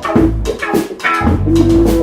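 Instrumental funk-rock band jam: drum kit keeping a beat under bass and guitar.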